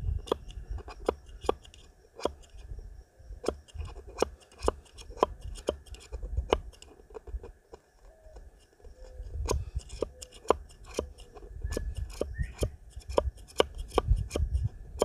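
Short, sharp scraping strokes of a small steel camp axe head working over wood and shavings, about two a second, with a brief pause midway.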